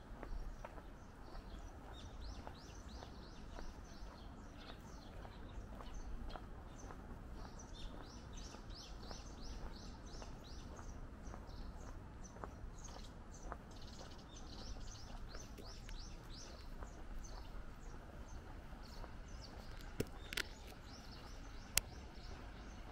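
Small birds chirping in quick runs of short, falling high notes over a steady low street hum. Two sharp clicks come near the end.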